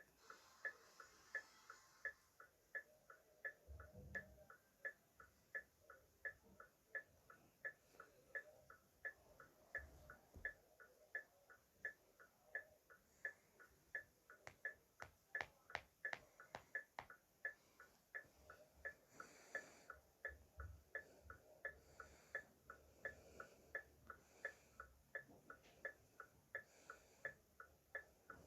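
Car hazard-light flasher clicking in an even, steady rhythm of about two to three clicks a second, the tick-tock of the flasher relay.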